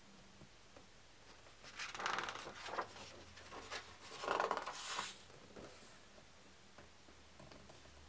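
A page of a hardback book turned by hand: two papery swishes with small crackles, about two seconds in and again about four seconds in, as the page is lifted and then laid over.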